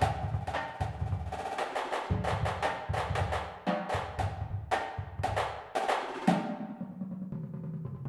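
Marching drumline of snare drums, tenor drums and bass drums playing a cadence: rapid accented snare rolls and patterns over tenor and bass drum figures. About six seconds in, a loud hit is followed by a thinner, quieter stretch.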